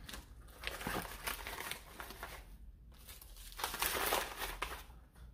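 Kraft paper mailer and plastic wrapping crinkling as they are handled and cleared away, in two spells of rustling: one about a second in and one near four seconds.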